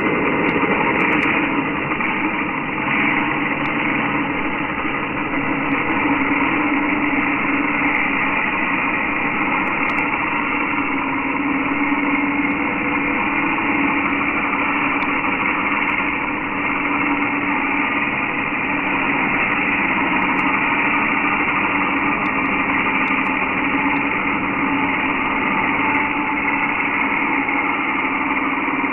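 Electric angle grinder cutting through a metal bar. It runs with a steady, loud, high-pitched whine that starts suddenly and holds throughout the cut.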